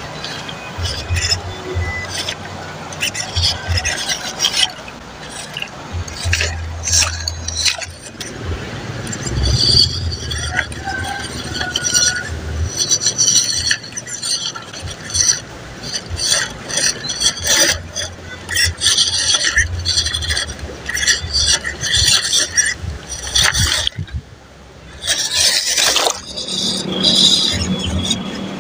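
MN99S 1/12-scale RC rock crawler driving through a shallow, rocky river: its small electric motor and gears running in stop-start spells, with water splashing and tyres knocking and scraping on stones.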